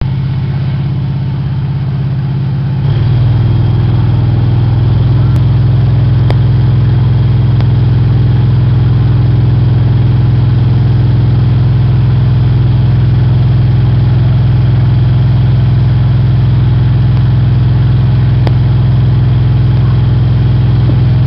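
Fire boat's engine driving its fire pump, running steadily at speed while the monitor throws a water jet. About three seconds in, the engine note steps up and grows louder as the pump is brought up to full flow.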